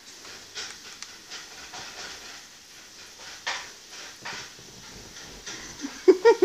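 Faint, irregular rustling and breathy hissing, a soft sweep every second or so, then a person's voice comes in loudly near the end.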